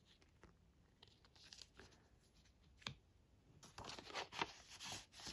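Faint rustling and scraping of paper and card as a photo card is slid out of a paper envelope, with one sharp tap about three seconds in.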